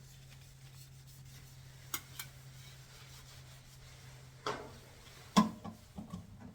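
Hands working a washing machine's rubber door boot: rubbing and handling sounds with a few light clicks, then sharper knocks, the loudest about five and a half seconds in, over a steady low hum.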